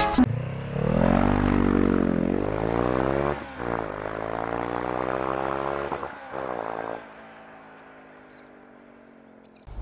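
Motorcycle engine accelerating hard through the gears: the pitch climbs, dips briefly at two upshifts and climbs again, then drops away about seven seconds in and fades to a faint rumble.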